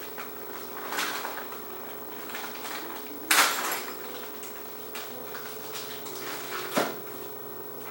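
A few knocks and clatters of hardware being handled, the loudest a short clattering burst about halfway through and a sharp knock near the end, over a steady hum.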